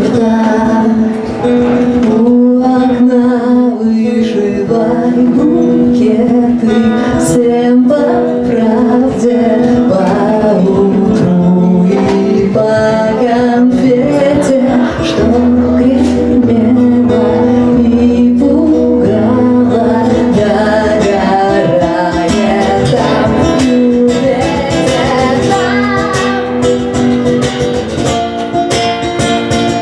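Acoustic guitar played with a sustained melody line over it, part of a live song performance.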